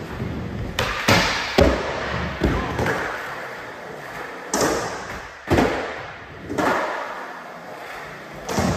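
Skateboard wheels rolling on smooth concrete, broken by several sharp clacks and thuds of the board popping and landing, echoing in a large indoor hall.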